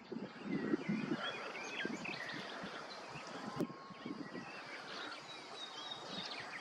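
Outdoor ambience with small birds chirping and calling in the background, and a low rustle in the first second.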